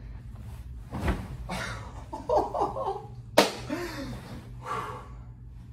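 A man jumping onto a bed: a thump about a second in, laughter, then a sharp smack as he lands on the mattress about three and a half seconds in, followed by a short exclamation.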